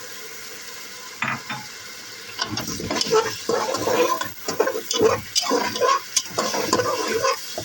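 A spoon stirring black urad dal into sizzling onion-tomato masala in a pressure cooker. A low sizzle comes first, then from about two seconds in, a run of irregular scraping strokes against the pot.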